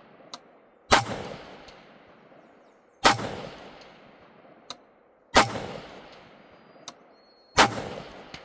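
Four rifle shots about two seconds apart, each with a long rolling echo. About a second and a half after each shot comes a faint ping: the bullet hitting a distant steel target.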